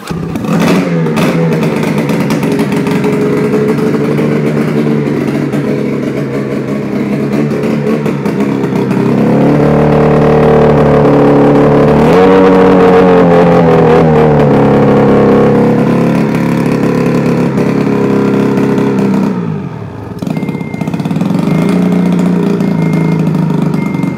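A 2005 Ski-Doo MXZ 800 HO snowmobile's twin-cylinder two-stroke engine catches just after a pull on the recoil starter and runs loudly. It is revved with the throttle: the revs climb in the middle and fall back, briefly dip, rise again, and the engine shuts off at the end.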